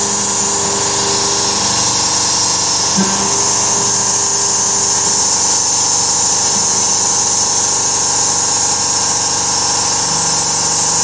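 Carvera Air desktop CNC mill cutting: a steady spindle and end-mill cutting noise with the hiss of its air assist blowing the chips clear. Some lower tones shift in pitch about three seconds in and again near the end.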